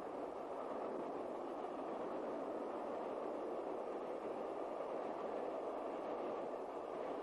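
Steam train running at speed: a steady rushing sound with no separate exhaust beats standing out.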